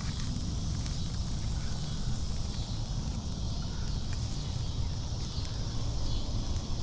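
Wind rumbling on the microphone, with faint crackling and rustling from a small twig-and-dry-grass kindling fire as sticks are fed into it by hand.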